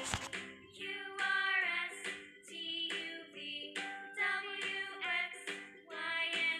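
Background children's music with a singing voice carrying the melody.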